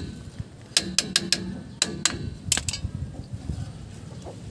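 Sharp metallic clicks and taps of a screwdriver working on a truck's rear drum brake shoes and hardware, several in the first three seconds, then only low background noise.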